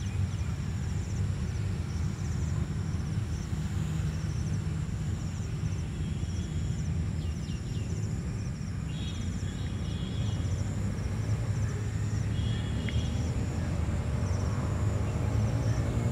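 Outdoor ambience: a steady low rumble under an insect trilling high in short, regular pulses, with a few brief bird chirps partway through. Music starts to come in near the end.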